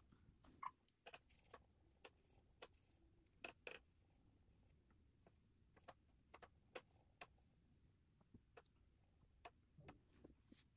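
Faint, irregular light taps and clicks of watercolor painting tools, a brush working on paper and against the palette, roughly one or two a second over quiet room tone.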